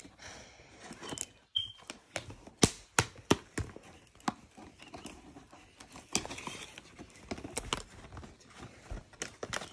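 Scissors cutting into a cardboard toy box, a string of sharp, uneven snips and clicks. From about six seconds in, the box and its packaging are pulled and torn open by hand, crinkling and rustling.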